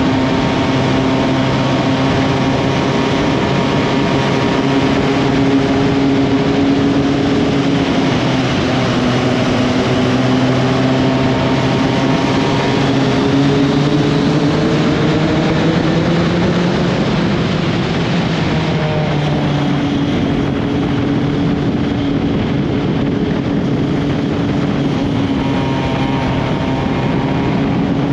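Honda CB1300SB's inline-four engine running while riding at speed, with a steady rush of wind and road noise. The engine note sags gradually, then picks up again about two-thirds of the way through.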